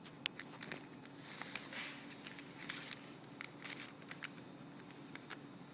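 Handling noises of a brown paper bag and pen over a polyurethane gown: one sharp click about a quarter second in, then scattered light taps and soft paper rustles, over a faint steady hum.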